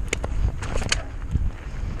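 Mountain bike descending a dirt trail: wind buffeting the microphone as a steady low rumble, with sharp clicks and rattles from the bike jolting over bumps.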